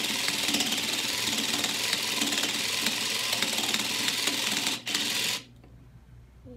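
Sew Cool toy felting machine running, its motor driving the felting needles rapidly up and down to stitch the felt layers together. It chatters steadily, falters briefly just before 5 seconds, then stops about 5½ seconds in.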